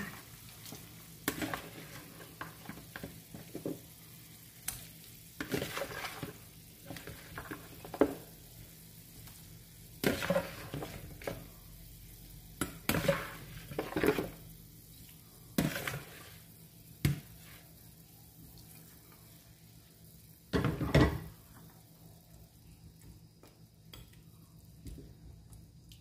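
Raw pork knuckle pieces being pushed off a plastic bowl with a spatula into a pan of boiling broth. Irregular knocks and scrapes of the spatula against the bowl and pan come with splashes of meat dropping in, and a heavier thump about 21 seconds in. The broth bubbles faintly underneath.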